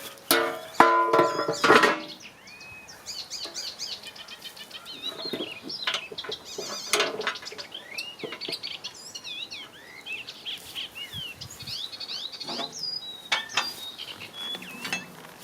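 Plucked-string background music ending about two seconds in, then birds chirping and singing in quick, wavering phrases, with a few sharp clicks near the end.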